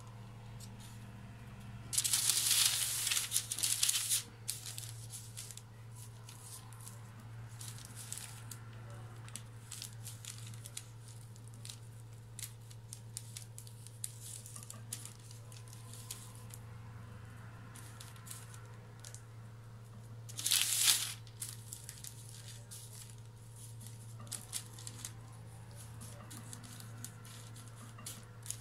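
Baking paper crinkling and rustling under hands crimping the edge of a filled dough round, with small crackles throughout and two louder bursts of crinkling, a long one about two seconds in and a short one about twenty seconds in. A steady low hum underneath.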